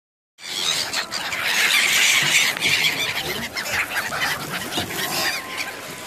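A large flock of gulls calling together, many high calls overlapping in a dense chorus. It is loudest in the first couple of seconds and thins out toward the end.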